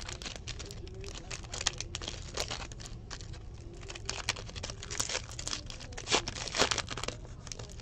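Plastic-foil trading-card pack wrapper of a 2017 Optic football pack being torn open and crinkled in the hands, with irregular crackles and rips.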